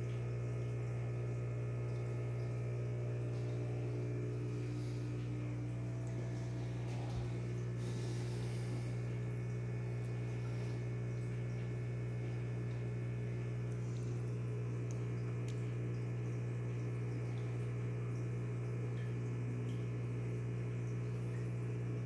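Aquarium equipment humming steadily at a low pitch, with a few faint ticks.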